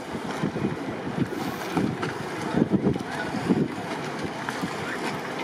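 Wind buffeting the microphone in irregular low gusts, over a steady background hiss.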